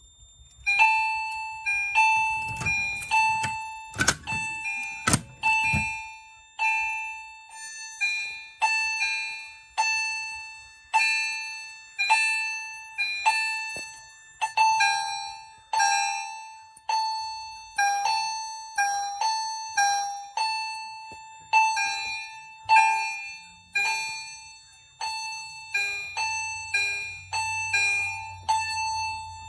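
Fire alarm chime strobes sounding in alarm, each striking a ringing two-tone chime about once a second. Several units are out of sync, so some strikes come in quick pairs. A few sharp knocks come in the first seconds.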